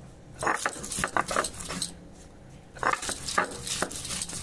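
Onion and garlic being crushed on a stone sil-nora: the stone roller rocks and scrapes over the wet paste on the grinding slab in quick, crunching strokes. The strokes come in two spells with a short pause between them, about two seconds in.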